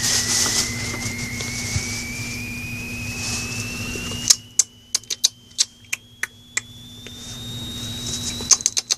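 Rustling and crinkling of shredded foil streamers as a shih tzu puppy moves about in them, followed by a string of sharp clicks about four seconds in and again near the end. A thin whistle-like tone rises slowly in pitch throughout, over a low steady hum.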